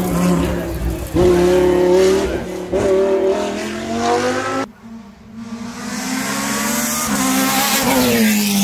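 Hillclimb race car engine at full throttle, rising in pitch through the gears with brief breaks between shifts. About halfway through it cuts off abruptly, and another stretch of race car engine builds steadily as the car approaches, its pitch falling near the end.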